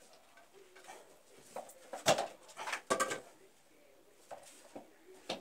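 Clicks, knocks and scrapes of a hand tool working on the water heater's metal pipe fittings and valves, with two louder clattering bursts about two and three seconds in.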